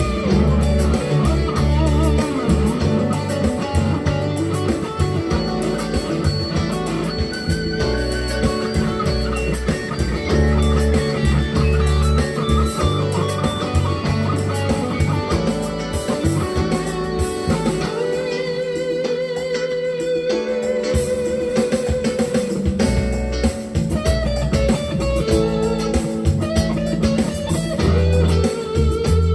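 GEARIT GST 100 Strat-copy electric guitar being played: melodic single-note lines with a strong low part underneath, and a held note shaken with vibrato about two-thirds of the way through.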